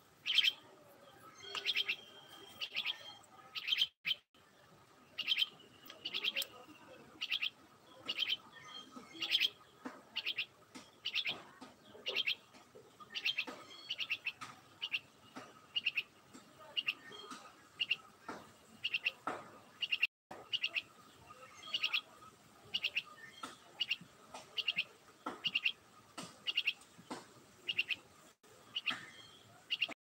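A caged myna chirping over and over: short, high calls about once or twice a second, some drawn out into a brief whistle.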